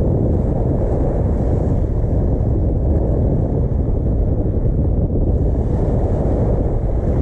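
Steady, loud wind on the microphone, a low rumble without a break.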